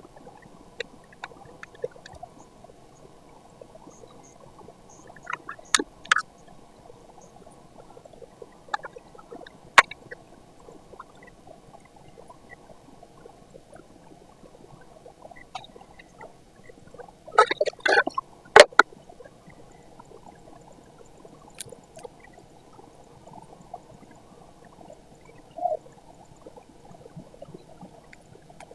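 Hands handling paper stickers and a clear plastic storage box: scattered light clicks and taps, with a quick cluster of taps and rustles a little past the middle, over faint steady background noise.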